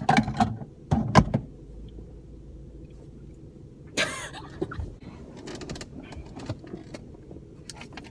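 Steady low road and engine noise inside a moving car, with a few sharp knocks in the first second or so and a brief louder noise about four seconds in.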